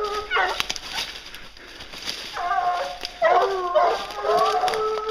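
Briquet hounds baying as they work a wild boar's scent line, giving drawn-out cries in several bouts, the last one held at a steady pitch.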